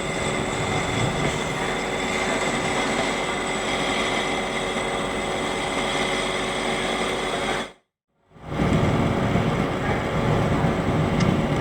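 Lathe running steadily: a continuous machine drone with fixed whining tones. The sound cuts out completely for about half a second near the middle, then resumes with more low rumble.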